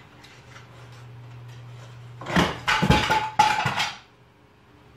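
A table lamp knocked off a side table crashing down: a clattering run of sharp impacts lasting under two seconds, starting about two seconds in, with a brief ringing tone among them.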